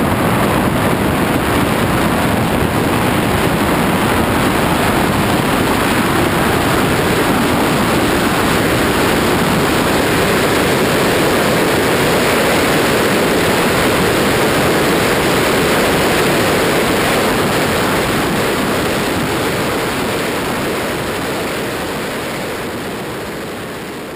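Steady rushing wind noise on an RC plane's onboard camera microphone in FPV flight, with no clear motor tone standing out; it fades out over the last few seconds.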